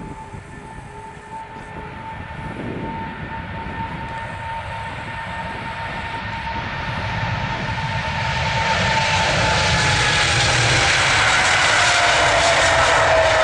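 Boeing 777F freighter's twin GE90 turbofans: a steady fan whine over a low rumble, then the roar builds from about halfway as the engines spool up to takeoff power and the aircraft rolls down the runway. Near the end the whine drops in pitch as it passes.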